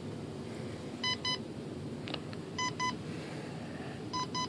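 Electronic speed controller beeping through the glider's brushless motor: three double beeps, short and steady-pitched, about a second and a half apart. It is the ESC's programming mode, entered by powering up with the throttle stick at full, cycling its setup menu while the brake setting is being selected.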